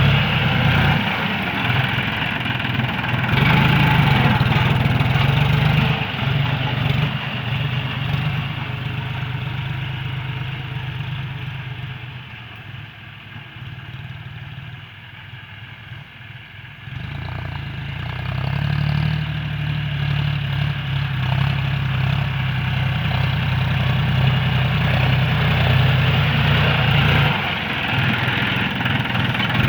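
John Deere 5045D tractor's three-cylinder diesel engine running steadily. Its sound fades to about half-way through, then comes back up strong from about 18 seconds in.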